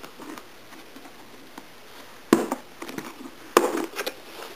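Latches of a hard plastic pistol case snapping open: two sharp clicks just over a second apart, each followed by a few smaller clicks of handling.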